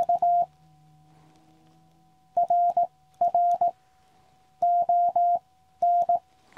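Morse code (CW) from a QCX Mini transceiver: a single steady pitch keyed in quick dits and dahs. It comes in about five short groups with pauses between them, and there is a faint click at each keying edge.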